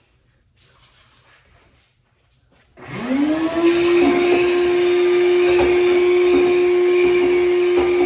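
Vacuum cleaner switched on about three seconds in, its motor whine rising quickly in pitch and then running steady and loud, with a few faint knocks.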